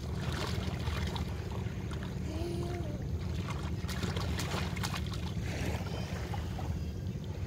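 Steady wind rumble on the microphone over shallow seawater, with small splashes and lapping from people wading close by.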